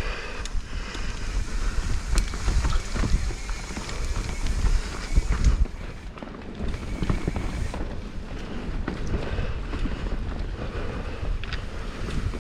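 Mountain bike descending a rough dirt trail: tyres rumbling over dirt and rock, with frequent clicks and knocks from the bike rattling, and wind buffeting the helmet camera's microphone.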